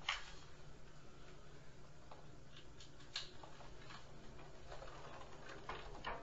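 A few faint, sharp knocks and clicks at irregular intervals, the strongest right at the start and another about three seconds in, over a low steady hum.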